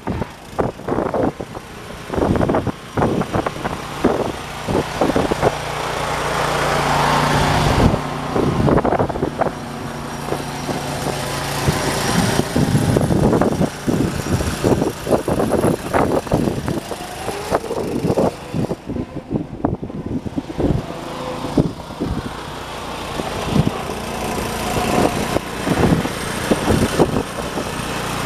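1979 John Deere 214 garden tractor's single-cylinder Kohler engine running as the tractor is driven around, growing louder as it comes near and fading as it moves away, quietest about two-thirds of the way through. The owner judges the worn engine to be in need of a rebuild.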